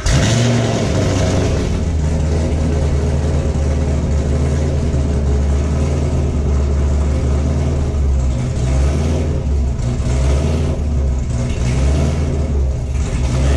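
Sixth-generation Chevrolet Camaro V8 with a Texas Speed heads-and-cam package idling loud and steady just after a cold start.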